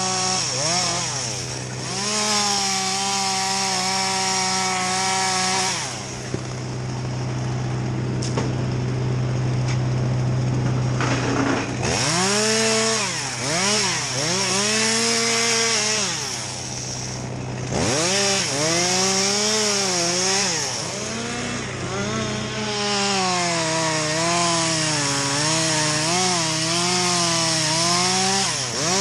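Chainsaw running and cutting, its engine revving up and down repeatedly under the throttle. It drops back toward idle for several seconds in the middle before revving again.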